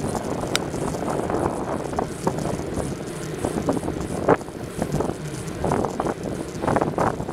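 Wind buffeting the microphone of a camera riding on a moving folding bicycle, over a rushing road noise, with scattered short knocks and rattles; the loudest knock comes about four seconds in.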